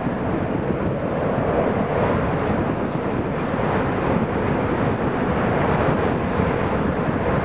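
C-17 Globemaster III's four Pratt & Whitney F117 turbofans at takeoff power as the jet lifts off, a steady, loud noise with no distinct tones.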